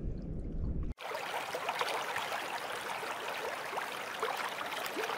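A low rumbling noise for about a second, then a sudden cut to water trickling and bubbling: a dense fizz of small plops and short rising chirps.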